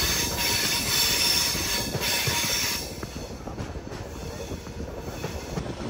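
A passenger train running slowly on a mountain ghat line, its wheels squealing against the rails. The squeal drops away about three seconds in, leaving the low rumble and rattle of the coach.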